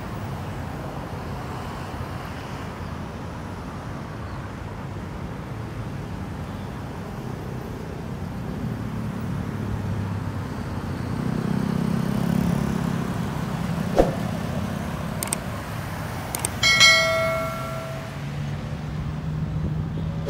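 Road traffic passing on a wide road, a steady rumble that swells as a vehicle goes by about halfway through. Near the end a few sharp clicks are followed by a short, loud ringing tone.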